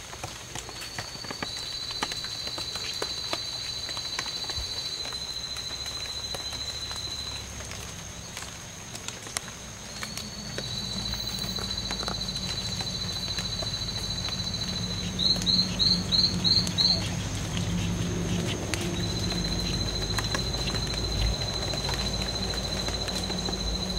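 Strawberry poison dart frogs calling: long buzzing trills of rapid clicks, each lasting several seconds. Two males call at once at slightly different pitches, overlapping near the start and again about halfway, and a single trill runs through the last few seconds. Just after halfway, six short, loud, rising chirps cut in, with a steady high tone underneath throughout.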